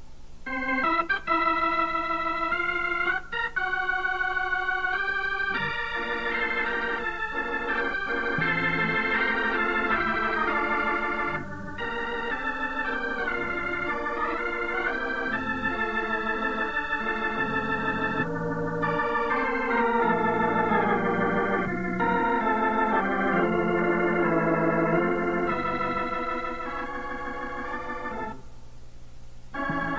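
Organ music: held chords with a moving melody, quieter for a moment near the end.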